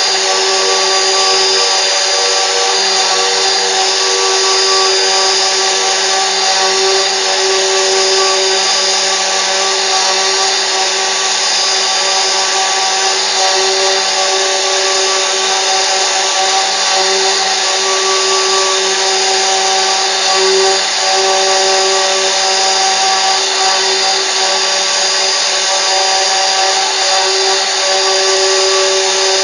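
CNC router spindle running steadily and cutting, a continuous whine over a steady cutting noise that wavers slightly in pitch with the load.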